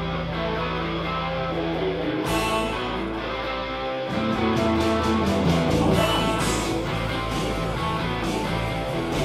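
Rock band playing live in a room: electric guitars and bass guitar with held notes, and drum strokes from an electronic drum kit settling into a steady beat in the second half.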